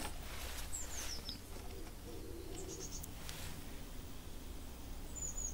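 Faint bird calls: a few short, high, falling chirps about a second in, near three seconds and again at the end, over a low steady hum.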